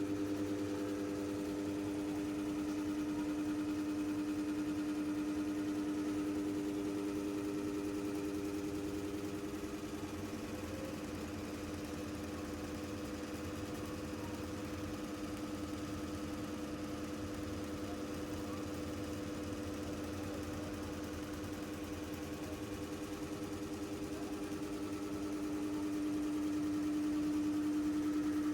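A motor running with a steady mid-pitched hum, a little quieter through the middle and louder again near the end.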